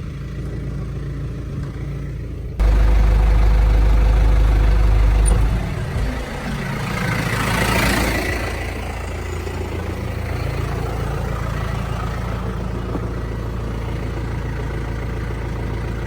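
Tractor engine idling steadily. A much louder low rumble comes in for about three seconds near the start and stops abruptly, and a hiss swells and fades around the middle.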